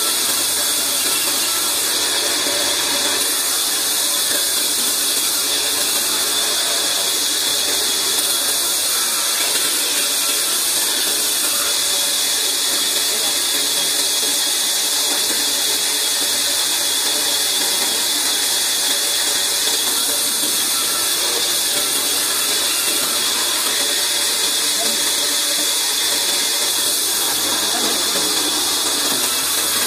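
Large band saw running and cutting through a log on its sliding carriage table: a steady, even noise with a strong hiss.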